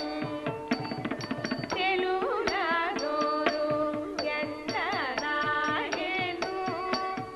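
Carnatic music for Kuchipudi dance: a voice sings ornamented, wavering notes over a steady drone, with regular drum strokes keeping the rhythm.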